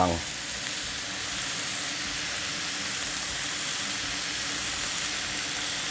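Meat frying on a hot griddle plate: strips of roast beef being seared at high heat alongside bacon and burger patties, with a steady sizzle.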